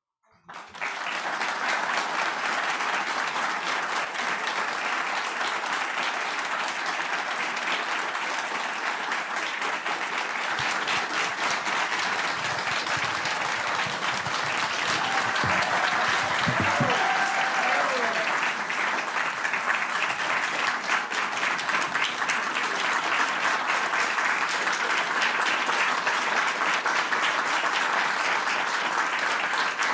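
Audience applauding: sustained clapping from a large crowd that starts about half a second in and holds steady, with a brief voice call rising and falling near the middle.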